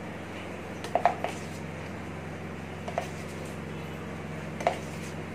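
Steel spoon clicking against a plastic tub and a steel bowl as cornflour is scooped onto mashed potato: a few light clicks about a second in, at three seconds and near the end, over a steady low hum.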